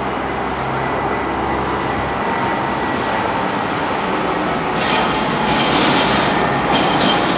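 Jet engine roar from a Boeing 747-400's four engines at takeoff thrust during the takeoff roll. It is a loud, steady rumble that grows louder and hissier about five seconds in.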